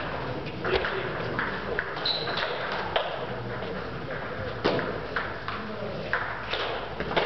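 Table tennis ball bouncing: a series of light, irregularly spaced clicks, with a brief high squeak about two seconds in.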